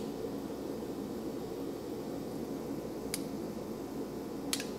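Steady low background hum, broken by two short sharp clicks about three and four and a half seconds in, as parts and tools are handled during disassembly.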